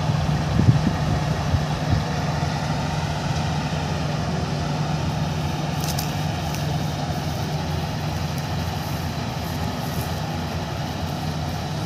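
Kartar 4000 combine harvester running steadily under load as it cuts wheat while climbing a mound: a continuous engine and machinery drone, with a couple of brief knocks in the first two seconds.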